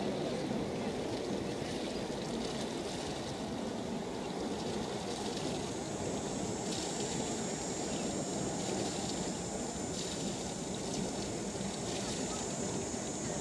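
Steady low rumble and water wash of a two-masted schooner moving under power with its sails furled. A thin, steady high-pitched whine joins about five or six seconds in.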